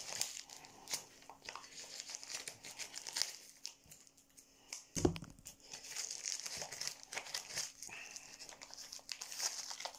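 Packing paper crinkling and tearing as a tightly taped package is unwrapped by hand, in irregular crackles, with a single knock about five seconds in.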